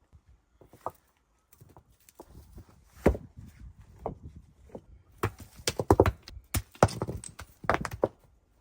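A series of irregular hard knocks and clacks, sparse at first and coming thick and loud from about the middle on.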